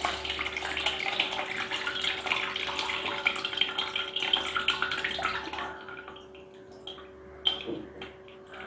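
Water splashing and trickling from one steel bowl into another through a hand for about six seconds as soaked black urad dal is rinsed to wash off its loosened skins, then a brief splash near the end.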